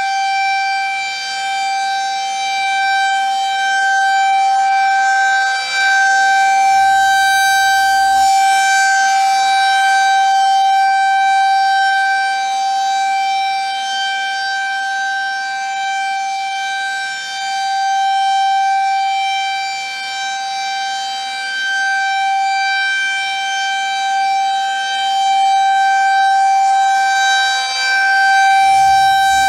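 Federal Signal 2001 rotating outdoor warning siren sounding a steady single-tone alert, its level swelling and fading slowly as the rotating head sweeps past; the monthly test signal. A brief low rumble comes about seven seconds in and again near the end.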